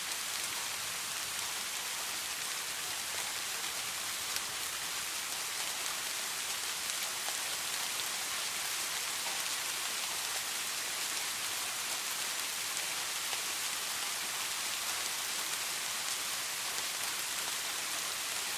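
Soft rain falling steadily: an even hiss of many small drops pattering on a surface.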